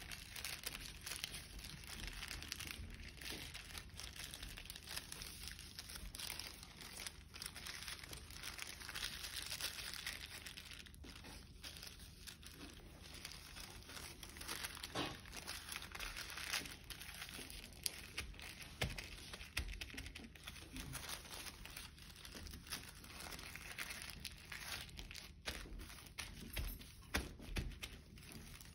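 Sheet of orange paper being folded and creased by hand on a tabletop: soft crinkling and rustling, with scattered small clicks as the folds are pressed flat.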